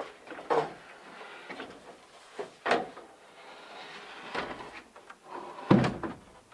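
Wooden lumber being handled: a few irregular knocks and scrapes as a rafter is shifted into position, with the loudest a heavy wooden thud near the end.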